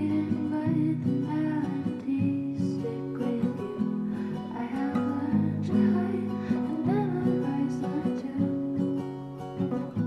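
Background music led by a strummed acoustic guitar, with a soft melody line over it.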